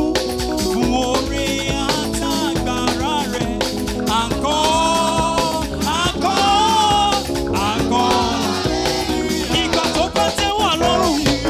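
Upbeat Nigerian praise band music: steady busy percussion under a lead melody whose pitch bends and slides.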